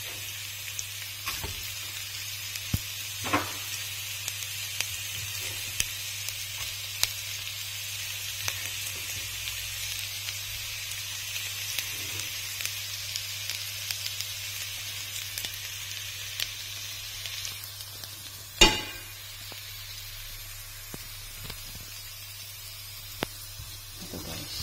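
Diced onion and garlic sizzling in hot oil in a nonstick pan, with frequent small clicks and scrapes of a plastic slotted spatula stirring them. One sharp knock of the spatula against the pan comes about three-quarters of the way through, and the sizzle is softer after it.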